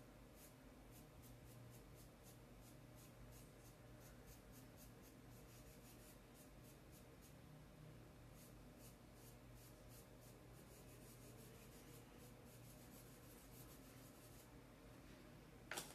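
Faint scratching of a paintbrush's bristles dabbing and stroking fabric paint onto coarse black sacking cloth in many quick short strokes, a few a second, pausing briefly near the end.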